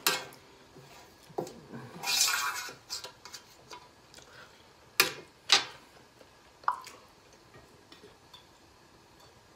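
Metal fork scraping and clinking on a large empty metal tray: a scrape about two seconds in, then three sharp clinks.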